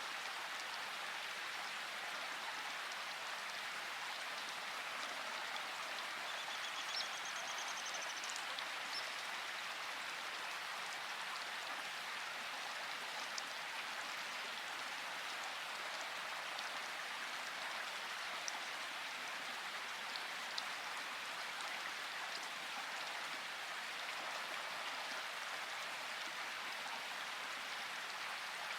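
Steady rain falling, an even hiss of drops with a few sharper drop ticks now and then.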